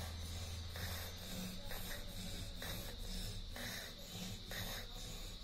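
A string wound round the steel shaft of a small DC motor used as a dynamo, sawn back and forth by hand. It gives a rhythmic rubbing rasp about once a second as the shaft spins one way and then the other, generating current.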